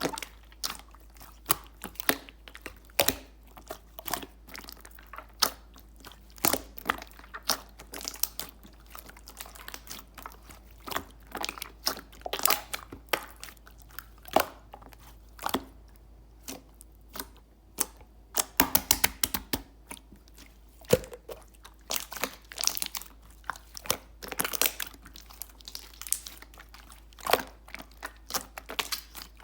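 Clear slime being squeezed and pressed by hand, giving irregular sharp pops and clicks, with a quick run of clicks about nineteen seconds in.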